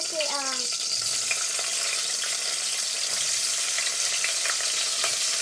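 Sliced hot dogs sizzling in hot oil in an aluminium pot, a steady frying hiss with faint small ticks.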